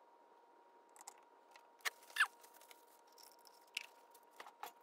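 Light handling sounds of a plastic oil bottle and funnel: a handful of sharp clicks and knocks with short falling squeaks of plastic, the loudest about two seconds in, over a faint steady hum.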